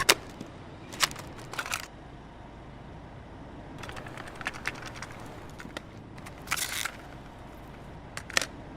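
A few sharp clicks and short rustling noise bursts over a faint low hum. Music is absent.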